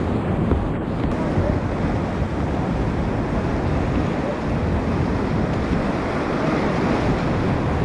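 Whitewater rapids rushing steadily and loudly around a kayak, with wind buffeting the microphone.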